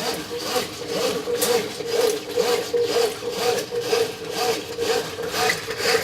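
Brastemp 9 kg washing machine agitating a load of laundry in water on a soak wash, with a steady motor hum and a rhythmic swishing, rubbing stroke about twice a second.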